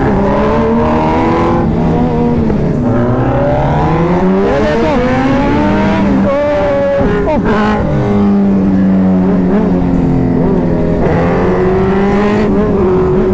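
Suzuki Hayabusa's inline-four engine under hard acceleration, its pitch climbing and then dropping at each gear change, over a steady rush of wind.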